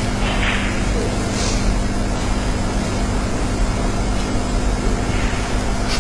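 Steady hiss and low hum of a snooker arena's background on the broadcast, with a few faint, brief sounds now and then.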